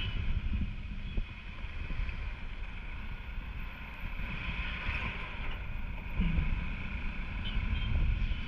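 Motorcycle being ridden along a road: the engine runs steadily under a rush of wind on the camera microphone.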